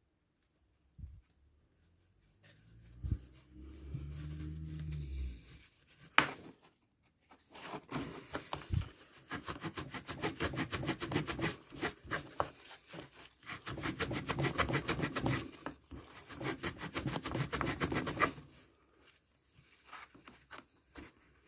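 Rapid back-and-forth hand scrubbing on a corroded chrome bicycle part, cleaning it up. It runs for about ten seconds with a brief pause in the middle, and is preceded by a short low hum and a single sharp click.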